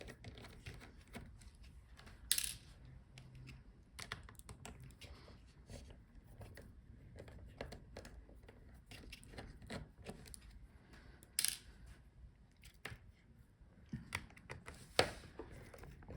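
Small scattered clicks and taps of a screwdriver backing out the hinge screws of a laptop, with three sharper clicks standing out among them.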